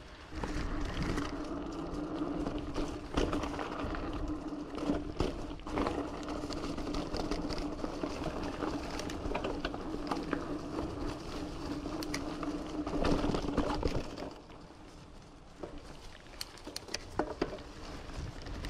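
Giant Fathom 2 mountain bike riding a dirt singletrack trail: tyre noise and frequent clicks and knocks as the bike rattles over the ground, over a steady hum that stops about 14 seconds in, after which it goes quieter with scattered clicks.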